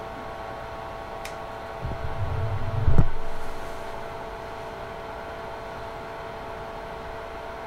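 Creality Ender 3 S1 Plus 3D printer auto-homing. Its cooling fans hum steadily with several fixed tones, and about two seconds in a low rumble of the motion system builds to a thump about three seconds in.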